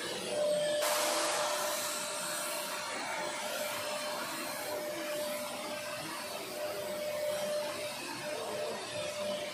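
Electric stick vacuum cleaner running as its nozzle is drawn over artificial grass, a steady motor whine under a rush of air. The rushing grows louder about a second in and then holds steady.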